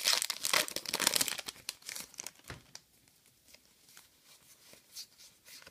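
Foil wrapper of a Pokémon TCG booster pack crinkling as it is opened and peeled back from the cards, for about the first two and a half seconds. After that it goes much quieter, with a few faint clicks as the cards are handled.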